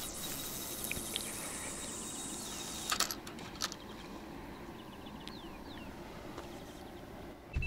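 Quiet outdoor ambience by a pond: a steady low hiss with faint, brief bird chirps, and a couple of sharp clicks about three seconds in.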